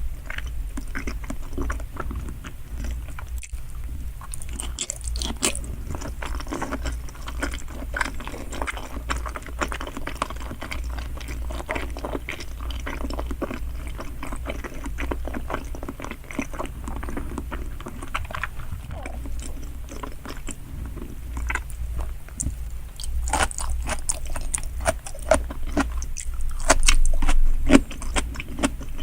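Close-miked chewing and biting of giant salmon sushi, with continuous small wet clicks and smacks; it gets louder and busier about three-quarters of the way through.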